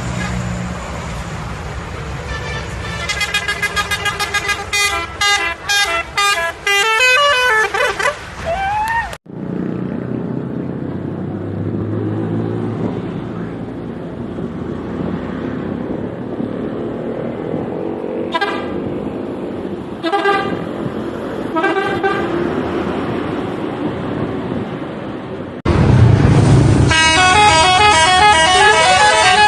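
Telolet horn of the SCH 716 bus: multi-tone horns playing fast, pulsing note patterns with some sliding notes, for about eight seconds before stopping abruptly. Then bus engine and street noise with three short horn toots, and near the end another loud burst of the telolet melody.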